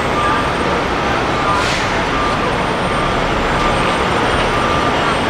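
Heavy truck engine running steadily as it slowly hauls an oversize-load lowboy trailer carrying an excavator, with a short hiss about a second and a half in.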